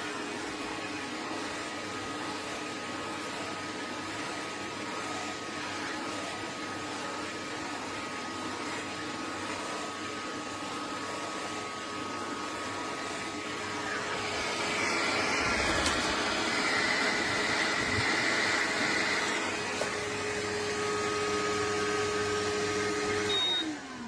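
Pet grooming vacuum of an Afloia clipper set running with a steady whine, growing louder and rougher about two-thirds of the way in. Near the end it is switched off and the motor winds down, its pitch falling.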